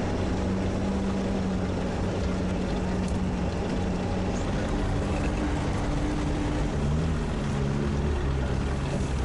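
Sherp all-terrain vehicle's diesel engine running steadily as it drives, a low drone whose pitch drops a little about seven seconds in.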